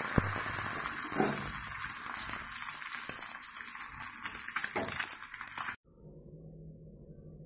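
Egg frying in hot oil in a pan, a dense sizzling with many small crackles. It cuts off suddenly about six seconds in, leaving only a faint low hum.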